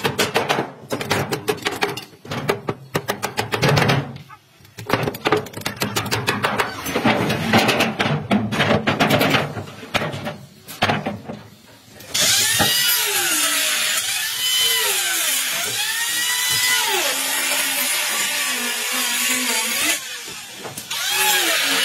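Hammer striking nails into wooden planks: rapid, uneven knocks for the first half. Then a handheld electric power tool runs steadily for about eight seconds, its pitch swinging up and down, before the knocking resumes near the end.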